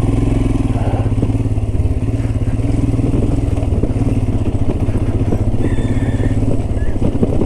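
Royal Enfield Himalayan's single-cylinder engine running at steady revs as the motorcycle gets under way.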